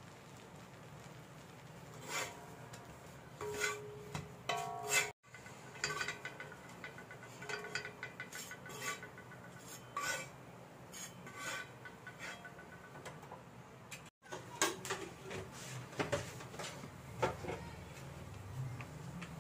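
Metal spatula and spoon scraping and clinking against a flat iron griddle (tawa) as slices of bread are toasted and turned: a run of short scrapes and taps, a few of them ringing briefly.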